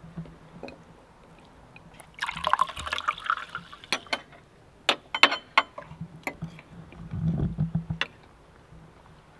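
Salad being served and eaten: a noisy rustle lasting about a second, then a series of sharp clinks of a knife and fork against a ceramic plate as the salad is cut.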